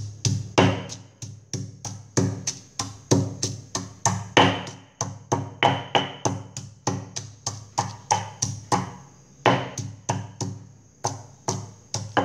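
Stone pestle pounding garlic and chili in a stone mortar: a steady run of sharp knocks, about three strikes a second.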